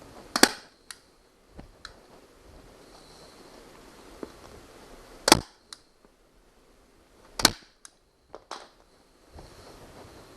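Harbor Freight FastenPro manual staple gun firing three times, each a sharp snap, a few seconds apart, as it drives staples through vinyl into plywood. Lighter clicks and knocks fall between the shots.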